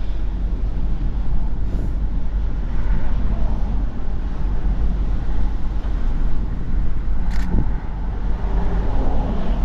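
Steady road and engine rumble inside a moving vehicle's cabin, with one sharp click about seven and a half seconds in.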